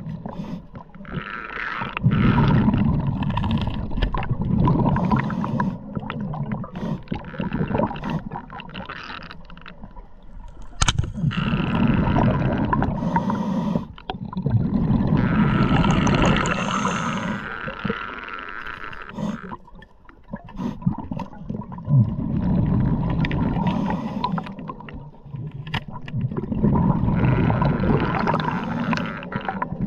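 Underwater noise on a diver's camera: water rushing and bubbling in repeated surges a few seconds long, with quieter gaps between them.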